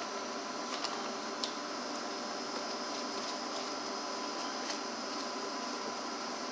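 A few faint light clicks of a plastic air filter cover being handled and pressed into place on a trimmer power head, over a steady background hiss.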